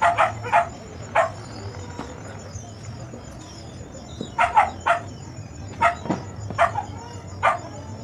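A dog barking about ten times in short, irregular groups.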